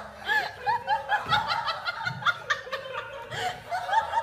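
People laughing: a run of short, repeated chuckles and giggles.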